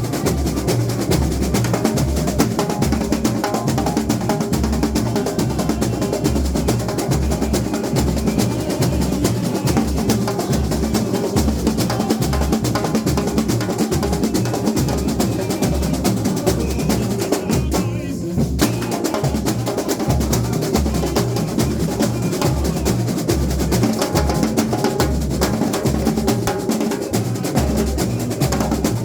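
Samba school bateria playing samba: surdo bass drums beat a steady pulse under a dense, continuous layer of snare and higher hand drums. The higher drums drop out for a moment about eighteen seconds in.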